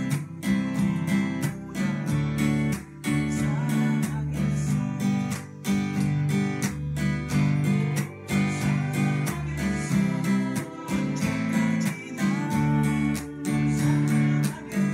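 Steel-string acoustic guitar strummed with a pick in a choppy cutting rhythm: rhythmic chord strokes with short muted cuts between them, changing chords every second or two.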